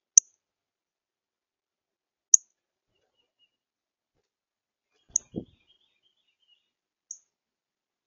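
Female northern cardinal giving four sharp, high chip notes about two seconds apart, with a short low thump about five seconds in.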